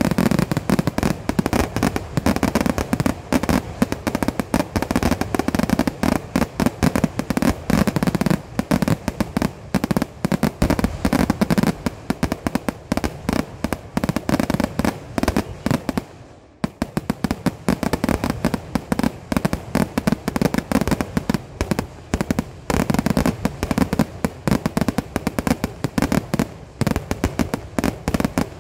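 Kerala temple-festival fireworks (vedikettu) going off in a dense, continuous barrage of rapid bangs and cracks with no let-up. It drops away for a split second a little past halfway, then carries straight on.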